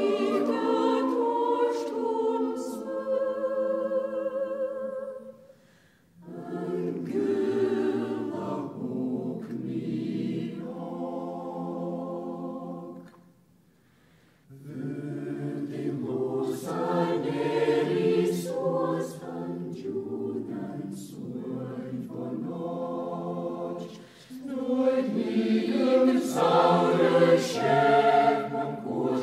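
A choir singing held notes in long phrases, several voices together, with short pauses about six seconds in and again near fourteen seconds.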